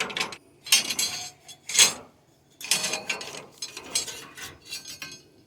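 Copper refrigerant tubing being worked loose and pulled out of an outdoor air-conditioner condenser: a run of metallic scrapes and clanks, about one burst a second.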